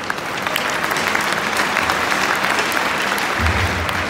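Ice hockey arena crowd applauding, a dense patter of clapping that swells about half a second in and eases off near the end.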